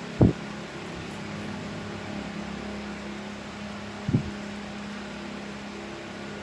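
A steady mechanical hum, with two short dull thumps: one just after the start and one about four seconds in.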